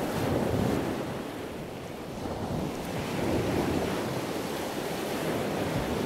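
Ocean waves and the wash churning past a moving sailboat's hull, with wind buffeting the microphone. The rushing swells and eases without a break.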